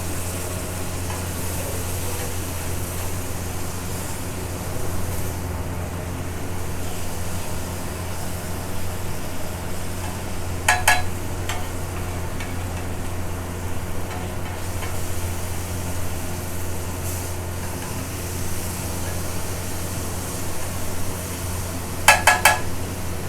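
Paneer tikka frying on a griddle, sizzling steadily over a constant low hum. A metal spatula clanks against the griddle in quick rattles, once about eleven seconds in and again near the end.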